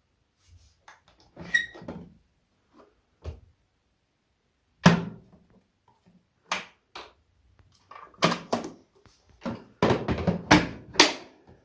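Irregular knocks and clicks of hard objects being handled, a dozen or so, coming thicker and louder in the last few seconds.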